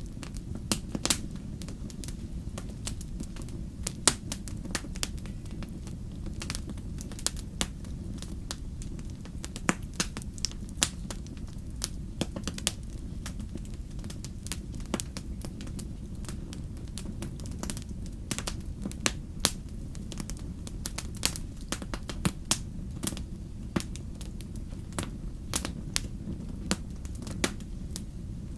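Wood fire in a fireplace crackling, with sharp irregular pops over a steady low rumble of the flames.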